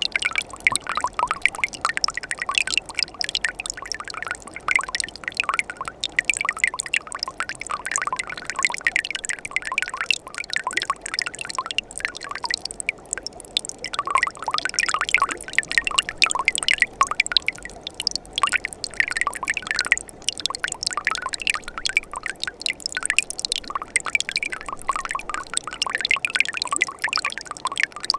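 Winter mountain stream running: dense, irregular trickling and splashing water, with a short lull about thirteen seconds in.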